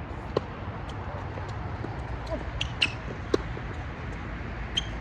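Several sharp knocks of a tennis ball on a hard court, the strongest about half a second in and a pair around three seconds in, over a steady low hum.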